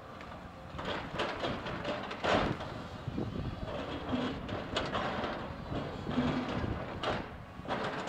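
A Komatsu tracked excavator's diesel engine running while its bucket digs into and drops broken concrete rubble, with repeated crashing and clattering of the concrete chunks. The loudest crash comes a little over two seconds in.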